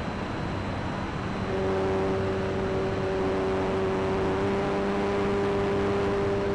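Wind rushing past the onboard camera of an FPV model plane, joined about a second and a half in by the steady hum of its electric motor and propeller under power, which holds one pitch.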